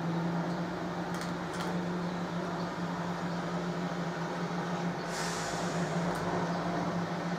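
Steady low mechanical hum, with a couple of faint clicks about a second in and a short hiss about five seconds in.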